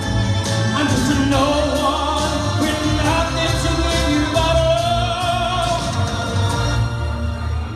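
Male swing singer singing live into a handheld microphone, holding long notes over musical accompaniment with a steady bass and a regular beat, heard through the venue's PA speakers.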